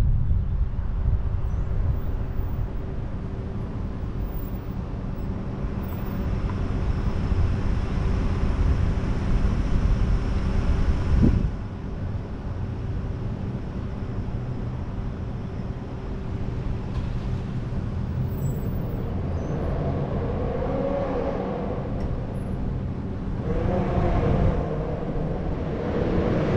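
Car traffic and road noise picked up by a camera on the outside of a car: a heavy low rumble, mostly wind and road noise, cuts off suddenly about eleven seconds in as the car slows, then traffic runs on around it, with nearby vehicles passing louder near the end.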